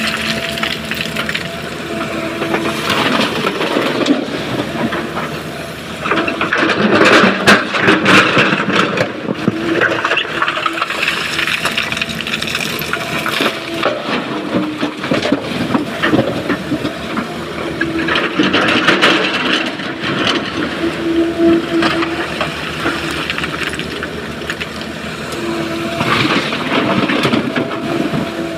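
Sany excavator working a rock pile: its engine and hydraulics run with a tone that comes and goes, under loud crunching and clattering of broken stone in several bursts as the bucket digs into the pile and dumps into a dump truck's bed.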